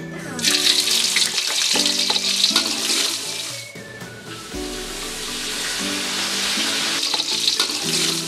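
Steady sizzling of leafy greens frying in a hot pan, easing briefly about halfway through, over background music with a repeating melody.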